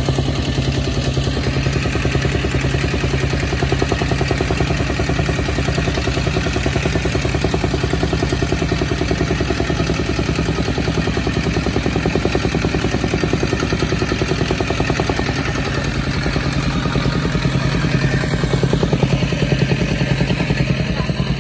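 Petrol-engine tamping rammer running steadily, its foot pounding the loose fill soil in a fast, even rhythm to compact it.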